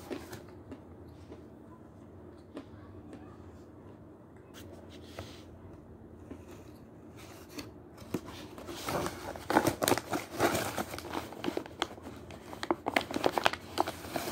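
White paper bag of Seversky edible chalk crinkling and rustling as it is handled and opened, a dense run of crackles starting about halfway through.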